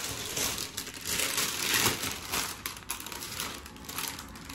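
Uneven crinkling and rustling, as of something being handled, swelling and fading and loudest a little under two seconds in.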